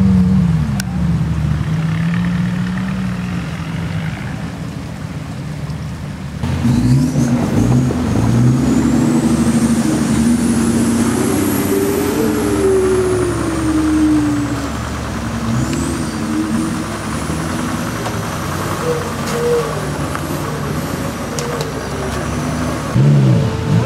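Off-road 4x4 engines working at low speed, revving up and down as the vehicles crawl through mud. The sound changes abruptly about six seconds in, and a high whine then rises and falls over several seconds.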